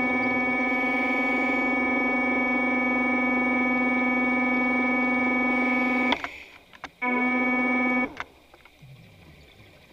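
Background music: a sustained electronic keyboard chord held steady, which cuts off sharply about six seconds in, comes back for about a second, then stops.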